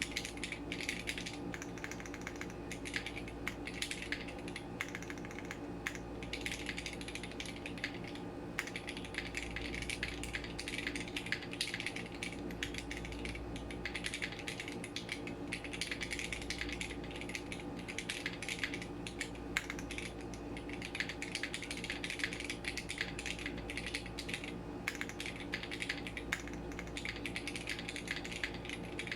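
Fast, continuous typing on a Matrix 6XV 3.0 Corsa custom mechanical keyboard with Cherry MX Red linear switches, an aluminium plate, no foam and GMK keycaps: a dense, irregular run of clacky keystrokes. A steady low hum sits underneath.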